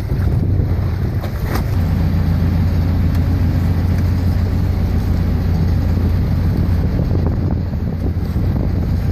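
Small ferry boat's engine running under way, a steady low drone that grows a little stronger about two seconds in, with wind buffeting the microphone and water rushing past the hull.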